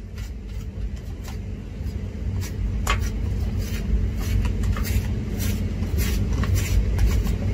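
Spoon scraping and tapping plain yogurt out of a plastic tub, a series of scattered short clicks, over a steady low rumble.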